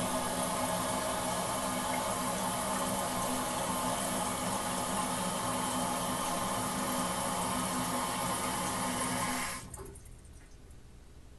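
A man urinating in a steady stream into toilet water, ending about nine and a half seconds in.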